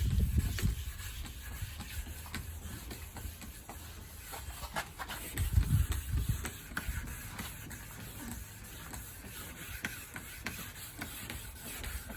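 Hand wet-sanding of car body clear coat with fine 1500-grit paper: a soft, irregular rubbing, with two low bumps, one at the start and one about halfway through.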